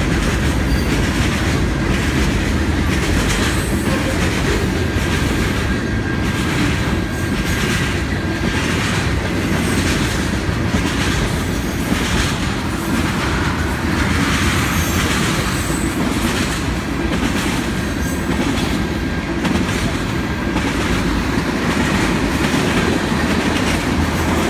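Freight train cars rolling past close by: a steady rumble with the clickety-clack of wheels over rail joints, and a faint thin wheel squeal now and then.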